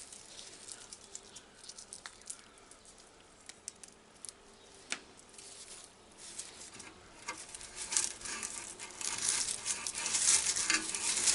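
Tobacco leaves rustling and tearing as they are stripped off their stems by hand, with scattered light crackles at first and a louder, denser rustle from about seven seconds in.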